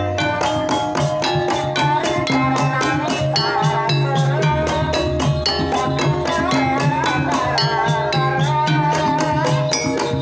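Banyumasan gamelan ensemble playing a tayub gending. Hand-struck kendang drums keep a quick, even beat over the ringing of bronze gongs and metallophones.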